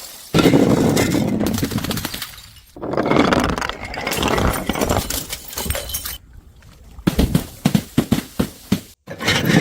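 Glass bottles smashing on stairs: a crash of breaking glass just after the start and another about three seconds in, each trailing off in clattering shards. Near the end comes a quick run of separate sharp clinks as pieces bounce and scatter.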